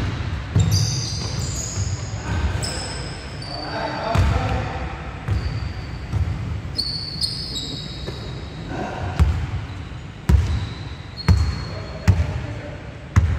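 Basketball dribbled on a hardwood gym floor, the bounces coming about once a second in the second half and echoing in the hall. Short high squeaks, typical of sneakers on the court, and players' voices sound in between.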